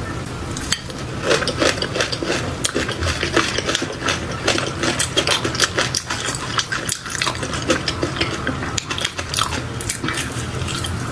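Close-miked eating of raw shrimp dipped in peanut sauce: biting and chewing with a dense run of irregular wet, sticky clicks.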